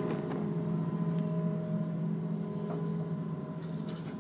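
Hitachi 210 excavator's diesel engine running with a steady hum, heard from inside the cab, as the machine swings a loaded bucket toward the truck. A few faint clicks sound over it.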